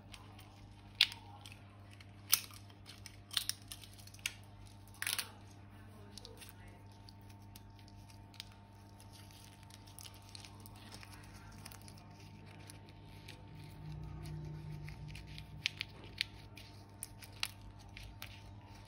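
Scissors snipping and plastic crinkling: a few sharp snips in the first five seconds, soft crackling in between, and more clicks near the end, over a faint steady hum.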